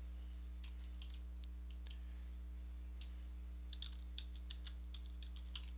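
Computer keyboard keys tapped in short, irregular runs over a steady low hum: a password being typed to unlock the computer's lock screen.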